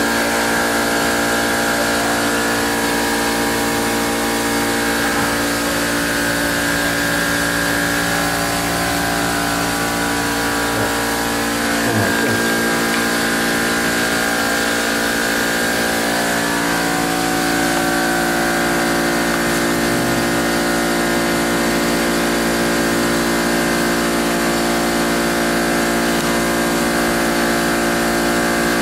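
Steady machine drone made of several steady tones, running evenly without change.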